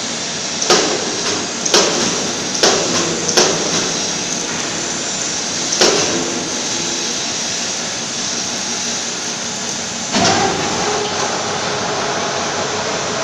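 Steady factory-floor machinery noise with several sharp metallic knocks over the first six seconds; about ten seconds in, a machine starts up and runs on with a steady tone.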